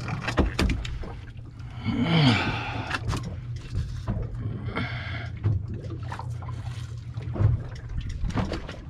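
Knocks and scrapes of a large grouper being handled and lifted off a fiberglass boat deck, over a steady low hum. About two seconds in there is a short voice-like sound that falls in pitch.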